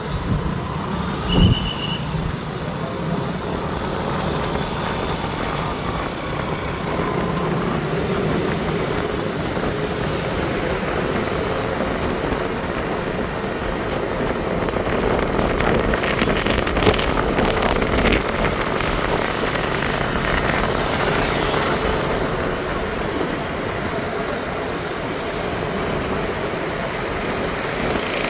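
Steady city traffic noise heard from a moving motorcycle: the running engines of the surrounding motor scooters and cars, with tyre and road noise. A brief high-pitched tone and a sharp low thump come about a second and a half in.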